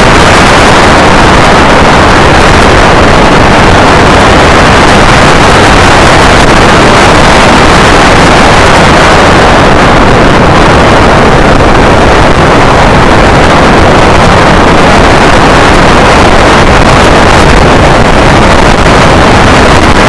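Loud, steady wind buffeting the microphone of a camera mounted low beside a moving motorcycle's wheel, mixed with engine and road noise at speed.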